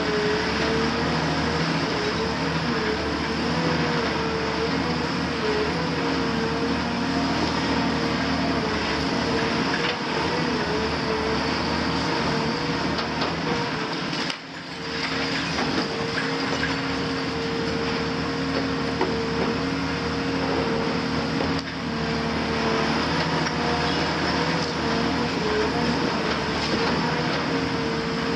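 Cat 340F UHD demolition excavator's C9.3 diesel engine and hydraulics working under load, a steady drone that wavers in pitch, over continuous cracking and clattering of concrete and brick rubble being pulled down and falling. The sound briefly drops about halfway through.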